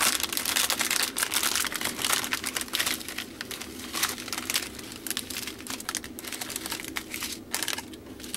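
Clear plastic bag crinkling and rustling as packets of diamond painting drills are handled and pulled out of it: a dense, irregular crackle, strongest in the first few seconds and a little lighter after.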